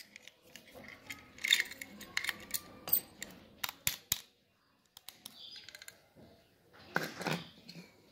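A brass padlock and its keys handled by hand: a string of sharp metallic clicks and taps as the key and shackle are worked, then a duller knock and scrape near the end as the lock is set down on a stone floor.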